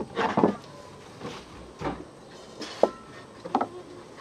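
Sticks of firewood knocking and clattering as they are pushed into a wood-fired clay stove: half a dozen separate knocks, with a sharp one near the three-second mark.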